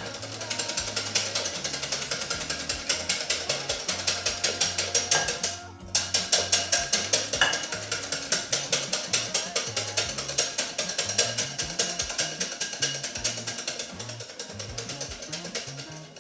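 Hand whisk beating double cream in a bowl: fast, even clicking strokes of the wires against the bowl, about four a second, with a brief pause about five and a half seconds in. Background music plays underneath.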